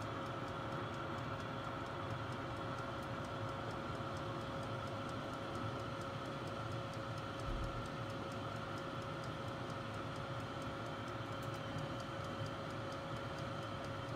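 Halogen convection countertop oven running: a steady fan hum with a faint, even ticking.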